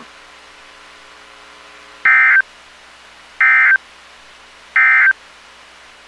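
NOAA Weather Radio EAS/SAME end-of-message data bursts: three short, identical, buzzy digital tone bursts about a second and a half apart, over faint steady radio hiss. They mark the end of the broadcast severe thunderstorm warning.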